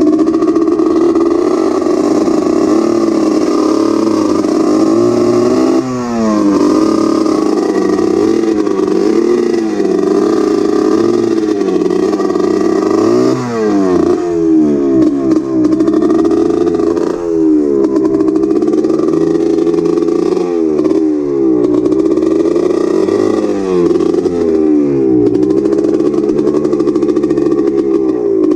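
ATV engine revving up and falling back over and over, its pitch rising and dropping every second or two. The throttle is being worked on a quad that has just stopped moving when given gas.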